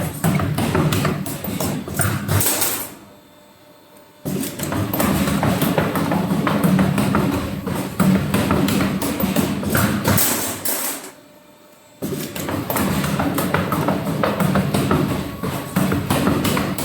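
Background music with a busy percussive beat, dropping away twice for about a second.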